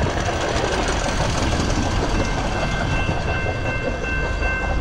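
A hi-rail maintenance-of-way pickup truck rolling along the track, its wheels rumbling on the rails, with steady high-pitched ringing over the rumble.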